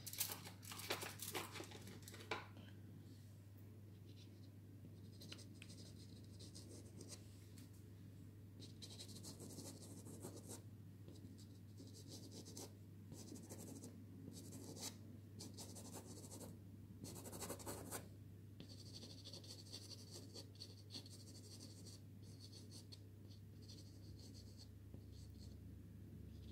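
Soft (dry) pastel stick rubbing and scratching over pastel card in short, faint strokes, over a low steady hum.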